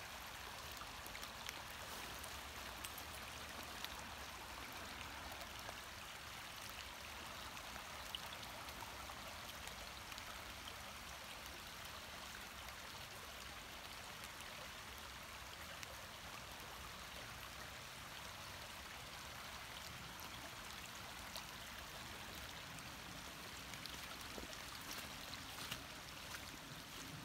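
Small forest creek running shallow over rocks: a faint, steady rush of water, with a few soft taps near the end.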